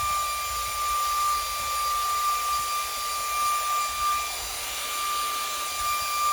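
Xiaomi handheld car vacuum cleaner running on its strong suction setting: a steady high-pitched motor whine over rushing air.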